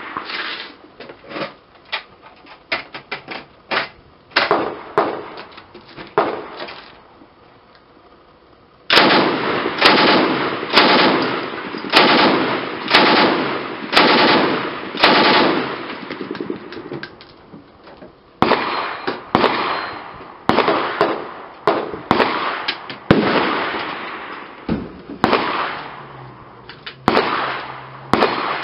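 DP-28 light machine gun firing 7.62x54R in a long string of short bursts about a second apart, each ending in a decaying echo, with quieter sharp shots in the first several seconds.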